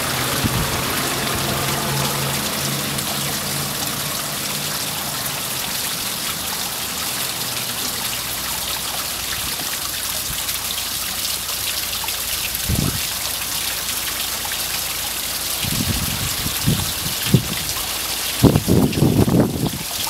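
Water from a skull-spout garden fountain falling onto stacked river rocks and trickling down into a small pool, a steady splashing. A few low, irregular bumps come in near the end.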